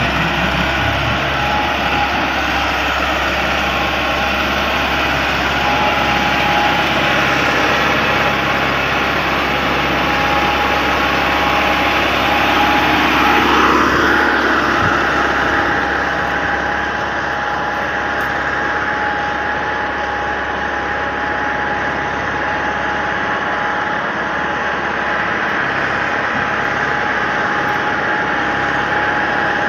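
Massey Ferguson 385 tractor's four-cylinder diesel engine running hard under load on loose dirt, with a rising rev about halfway through.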